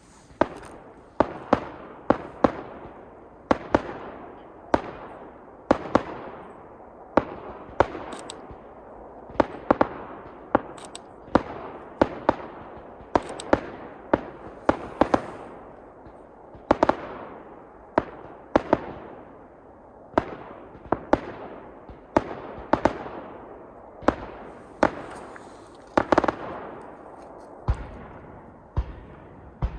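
Aerial firework shells bursting in quick succession, about one or two bangs a second, each trailing off in a fading echo.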